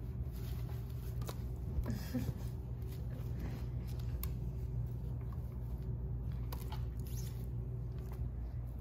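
Small dog moving about on a pee pad and mouthing a small toy: faint rustles and scattered light clicks over a steady low hum.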